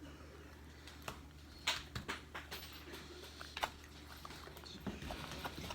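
Slime being squished and poked by hand, giving irregular small clicks and pops, a few sharper than the rest, over a low steady hum.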